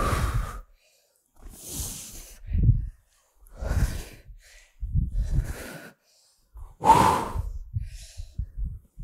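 A woman breathing hard during lunges, about six forceful breaths roughly every second and a half, each with a dull low thump. The loudest breath comes about seven seconds in.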